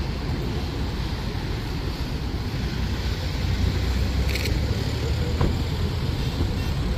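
Steady low rumble of vehicle engines and road traffic, a little louder midway, with one brief sharp click about four seconds in.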